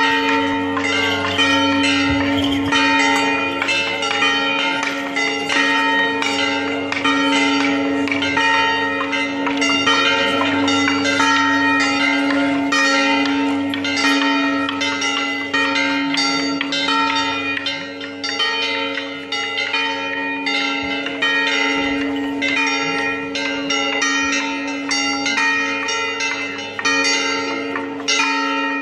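Several church bells ringing together in a rapid, continuous peal, strike after strike over their lingering ring.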